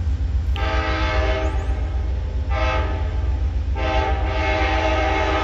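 Amtrak P42DC Genesis locomotive's air horn sounding as the train approaches: a long blast about half a second in, a short one around two and a half seconds, then another long blast from almost four seconds on, over a steady low rumble.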